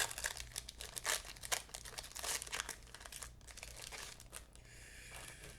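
A trading-card pack wrapper crinkling and rustling in the hands: irregular crackles that ease off into a softer rustle near the end.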